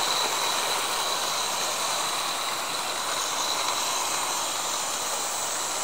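Hornby model locomotives running at speed around a model railway: a steady whirring hiss of their small electric motors and wheels on the track, with a faint steady high whine.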